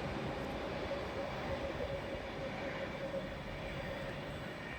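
V-set double-deck intercity electric train (sets V20 and V7 coupled) running through the station without stopping: a steady rumble and rolling noise with a steady hum, gradually fading.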